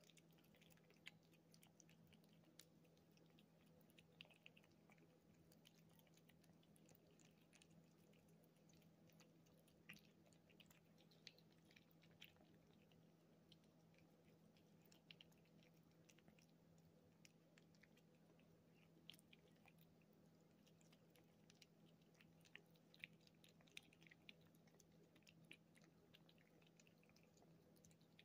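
Kittens licking and chewing churu puree from a plate: faint, irregular wet clicks and smacks of tongues and mouths, over a steady low hum.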